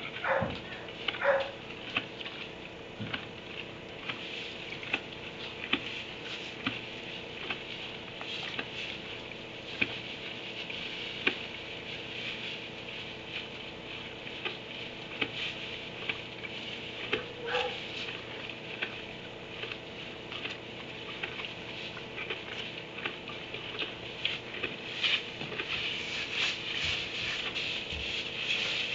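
A dog barking in a kennel: a couple of barks at the start and one more about 17 seconds in. Between them runs a steady light crackling patter, which grows busier near the end as donkeys get up and move in the wood-shavings bedding.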